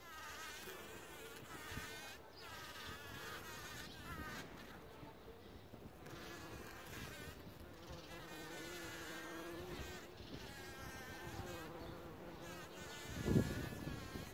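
Bumblebee buzzing as it forages on a poppy flower, a steady, wavering hum. It swells into a louder burst near the end.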